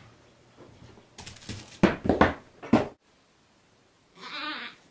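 Baby goat bleating: a cluster of loud cries starting about a second in, then after a short silence one brief, wavering bleat near the end.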